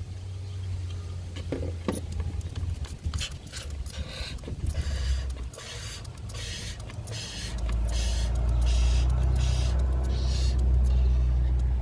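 Old power steering fluid being sucked out of the reservoir: a steady low motor hum that grows louder about two thirds of the way through, with repeated short hissing, slurping bursts as fluid and air are drawn through.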